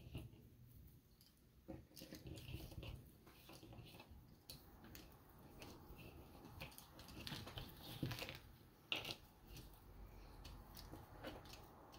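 Cardboard jigsaw puzzle pieces being pulled apart and sifted by hand: faint, irregular clicks and crinkly rustles, with a couple of louder clicks about two-thirds of the way in.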